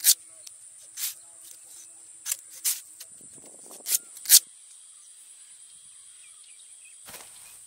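Knife slicing into the fibrous husk of a palmyra palm fruit, about six crisp cutting strokes in the first four and a half seconds and one more near the end. A steady high insect drone runs underneath.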